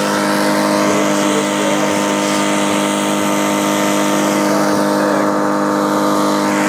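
Two-stroke Suzuki engine on a 17-inch Toro push mower running at a steady pitch as it cuts through thick grass and clover.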